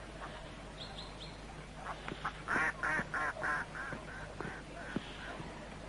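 A duck quacking in a fast series of about a dozen quacks, three or four a second, loudest in the middle. Three short high chirps come about a second in.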